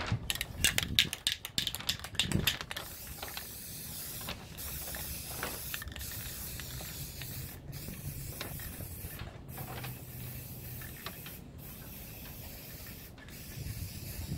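Aerosol spray paint can: its mixing ball rattles quickly as the can is shaken for the first couple of seconds, then the spray hisses steadily in passes broken by several brief pauses.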